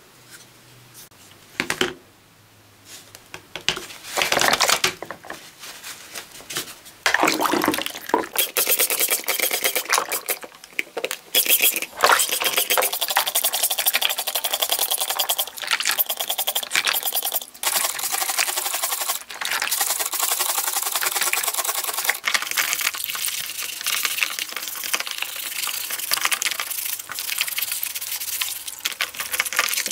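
A few scattered handling knocks, then from about eight seconds in the plastic housing halves of a Peugeot 400W drill being scrubbed by hand in a bowl of soapy water: sloshing water and rapid scratchy rubbing with small knocks of plastic.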